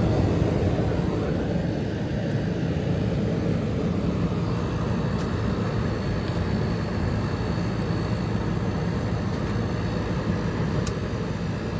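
1977 GE Superthrust window air conditioner running steadily, its fan blowing air over a low compressor hum; the unit is cooling well.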